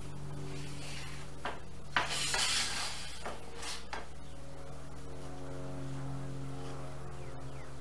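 A metal T-square knocking and scraping against a plywood sheet as it is set and slid into place. There is one sharp knock about two seconds in, followed by a short scrape and a lighter knock. Soft background music plays under it.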